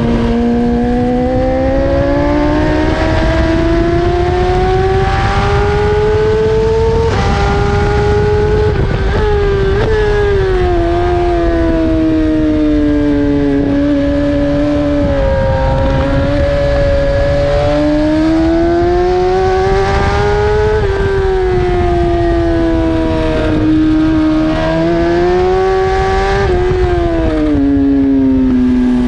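BMW S1000RR inline-four engine at racing revs, its pitch climbing repeatedly with a quick break at each upshift, and falling as the bike slows for corners. Heavy wind rush sits underneath.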